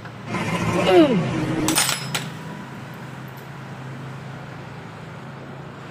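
Steel fuel line being fitted onto a delivery valve holder of a six-cylinder inline diesel injection pump: a brief falling squeak-like sound, then a couple of sharp metal clinks, all within the first two seconds. A steady low hum continues after.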